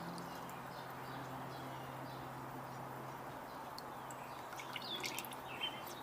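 Quiet background with a steady low hum and even hiss, and a few short bird chirps near the end.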